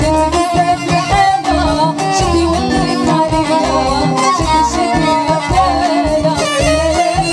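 Live Moroccan chaabi music: a woman singing into a microphone over violin and a rhythmic low beat from bass and percussion.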